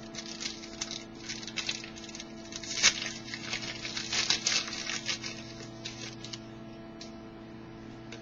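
Trading cards being handled and slid one past another, a run of soft clicks and rustles that thins out near the end, over a steady electrical hum.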